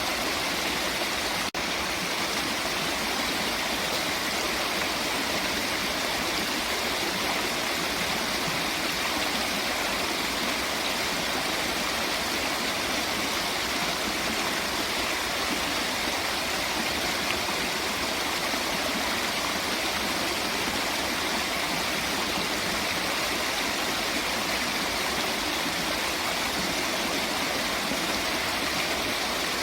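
Steady rushing of flowing water, even and unbroken, with a brief click and dip in level about a second and a half in.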